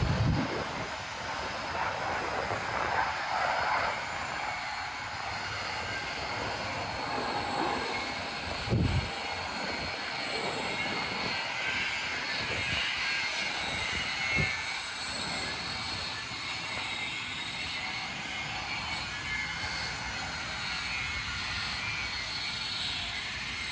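Steady rumble of a passing train, with faint wheel squeal and a few dull thumps.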